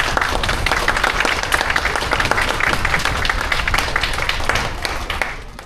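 Audience applauding and clapping, many hands at once, fading out at the end.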